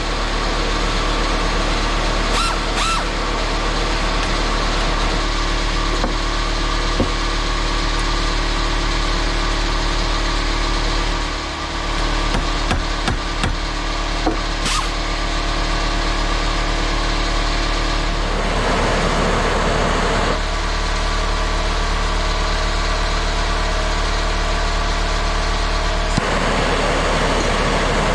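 Air-powered angle grinder running flat out without a break, a steady motor tone under a hard test to see whether it fails. It dips briefly about eleven seconds in, and its tone turns rougher for a couple of seconds around the two-thirds mark and again near the end.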